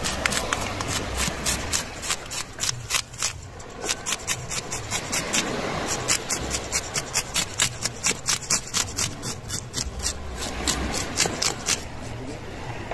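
A knife scraping the scales off a freshly caught grouper: quick, rhythmic rasping strokes, a few a second, with short pauses between runs.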